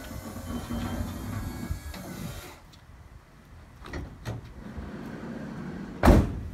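Cargo lift's motor running as the platform folds up, stopping about two and a half seconds in, followed by a couple of clicks. Then the Fiat Ducato's sliding side door rolls shut and slams loudly near the end.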